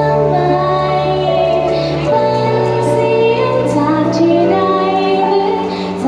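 A female vocalist singing a sustained melodic line over backing music, its held bass notes shifting about two seconds in and again later.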